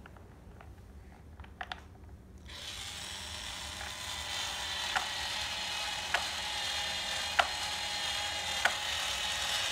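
Toy power drill running, a steady motor whir starting about two and a half seconds in, with a sharp click about every second and a quarter as the bit turns on a plastic toy screw. A few light plastic clicks come before the motor starts.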